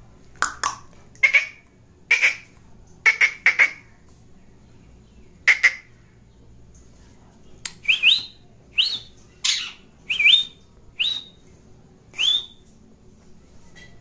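Rose-ringed (Indian ringneck) parakeet giving a series of short, sharp squawks, a cluster in the first few seconds and then a quicker run of about seven calls that each rise in pitch.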